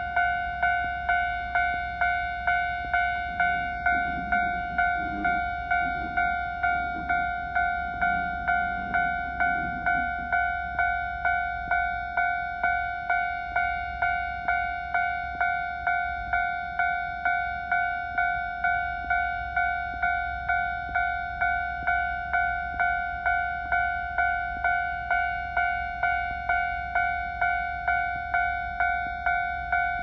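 Railway level-crossing warning alarm ringing: an electronic bell-like tone that strikes and fades about twice a second, steady and unbroken.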